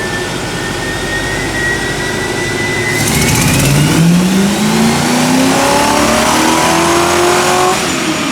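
Car engine accelerating hard under load: its pitch climbs steadily for about five seconds, then drops back near the end.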